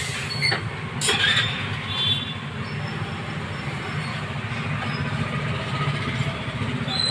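A steady low rumble, with a brief clatter about a second in and a few short high squeaks.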